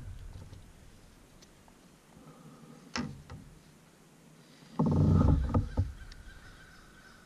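Handling noise in a kayak while a caught bass is held and measured: a sharp knock about three seconds in, then about a second of low, rattling thuds.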